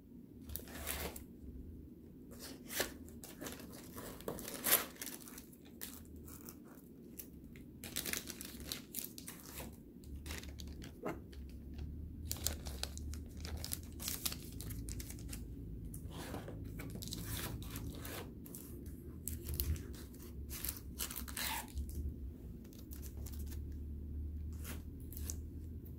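Foil trading-card pack wrapper being torn open and crinkled by hand: irregular crackling rustles throughout, with a few sharper tears.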